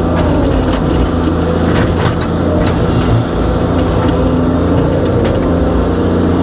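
Excavator's diesel engine and hydraulics running steadily under load, heard from inside the cab, with scattered short knocks as the bucket works the dirt.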